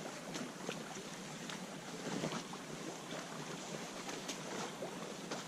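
Stream water rushing steadily, with scattered short splashes.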